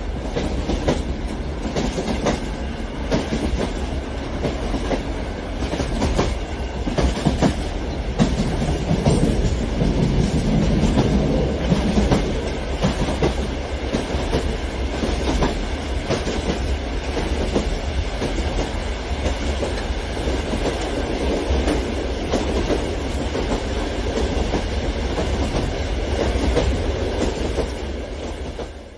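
Electric model passenger train running on sectional track: the wheels clatter over the rail joints in irregular clicks over a steady low rumble. The sound fades out near the end.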